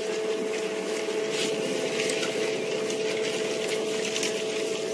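A steady two-tone hum over a hiss, with faint light crackles of twigs and leaves as elephants browse in the bush.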